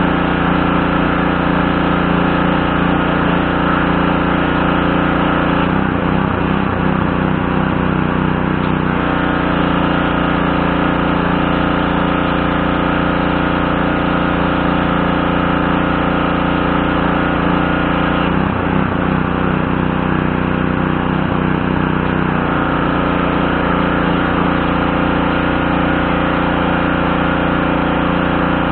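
Craftsman gas pressure washer's Briggs & Stratton 550E series 140cc engine running steadily. Its note shifts twice for a few seconds, about six seconds in and again about eighteen seconds in.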